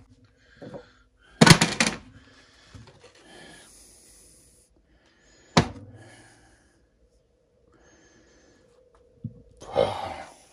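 Metal motor stator parts being handled on a workbench: a short clatter about a second and a half in, one sharp knock about halfway through, and another clatter near the end.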